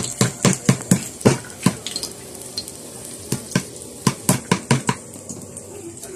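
Knife chopping on a wooden chopping board: quick, irregular knocks in two runs, the first right at the start and the second about three seconds in. Under them, a steady faint hiss of oil heating in the wok.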